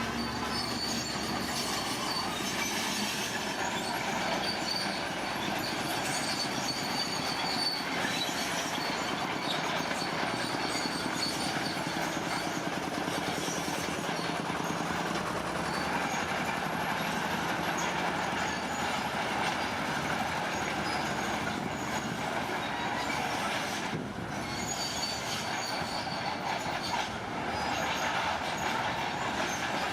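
Tracked earthmoving machine at work: its diesel engine runs steadily under a dense metallic din, with high squealing from the steel crawler tracks that comes and goes.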